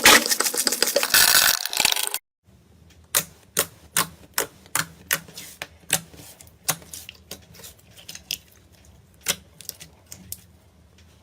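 Slime being played with by hand: about two seconds of dense, loud crackling. After a cut come slower, separate sharp clicks and pops, about two or three a second, over a low hum.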